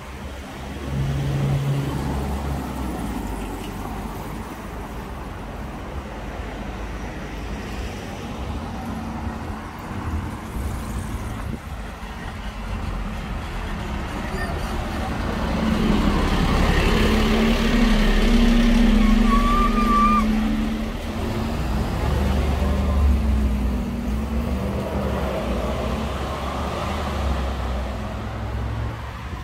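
Road traffic on a city street: car and lorry engines and tyres running by, loudest as a vehicle passes close by around the middle.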